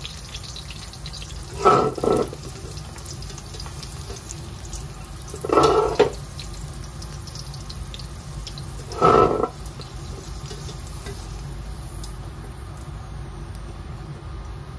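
Ghee sizzling steadily in a steel pot. Three times, about every three and a half seconds, comes a short scrape as a plastic slotted spoon scoops the fried cashews and raisins out of the pot.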